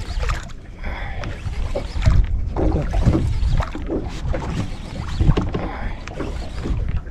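Wind buffeting the microphone, with water lapping against the hull of a small wooden boat, as a heavy rumble that rises and falls unevenly.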